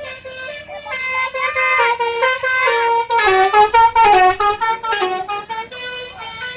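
Bus telolet horn (Basuri-type musical horn) playing a melody: several pitched horn notes stepping and sliding up and down, loudest in the middle.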